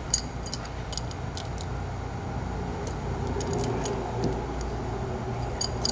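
Scattered metallic clicks and clinks of crescent wrenches on a catch can's hose fittings as they are loosened, turned to orient them, and tightened to seal, over a steady low hum.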